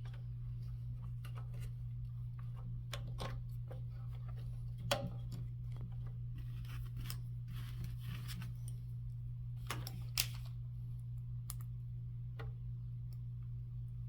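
Scattered small clicks and taps of a cover plate and screws being handled and fitted back onto the golf caddy's housing, with two sharper clicks about five and ten seconds in, over a steady low hum.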